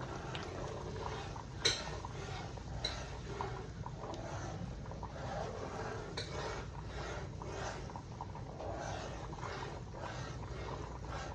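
Cookware clinking a few times, with sharp light clicks, over a low steady hum of the kitchen.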